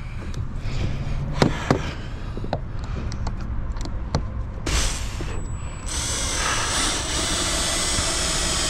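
A power drill running in two spells, briefly about five seconds in and then steadily through the last few seconds, with a few sharp knocks earlier on. A steady low rumble runs underneath.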